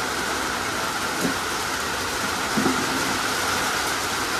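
Heavy monsoon rain pouring down, a dense steady hiss.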